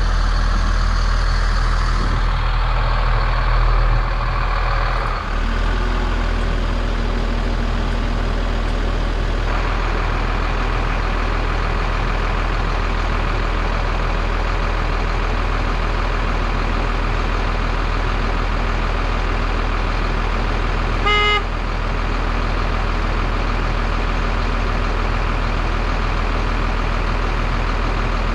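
2000 Freightliner FL70 water truck's diesel engine idling steadily, with one short blast of the truck's horn about three-quarters of the way through.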